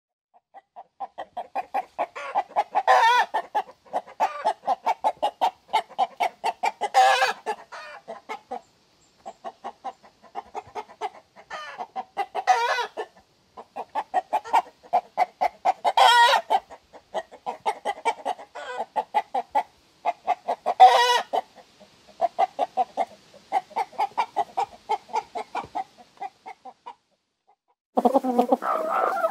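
Hens clucking in rapid runs, broken every few seconds by a louder, drawn-out cackle. A different recording of chickens cuts in just before the end.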